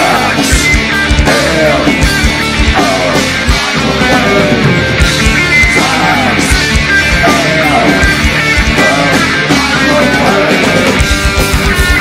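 A heavy metal band playing live, an instrumental passage with no singing: distorted electric guitars carry a lead line of bending, sliding notes over bass and drums. About a second before the end the drums break into a fast, even kick-drum pattern.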